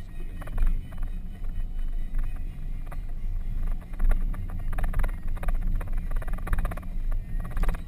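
Off-road vehicle driving slowly down a rough dirt track, heard from inside the cabin: a steady low rumble with irregular knocks and rattles as it goes over bumps.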